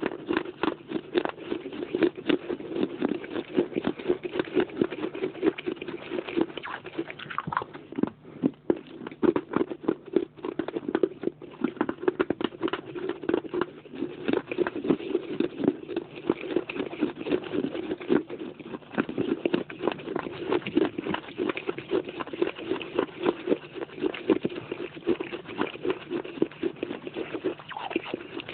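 Close-up chewing and crunching of baked clay pot pieces in the mouth: a dense, rapid run of crisp cracks and crunches with brief lulls.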